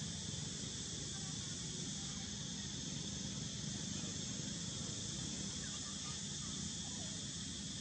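Steady outdoor insect drone, a continuous high-pitched hiss, with a low rumble underneath.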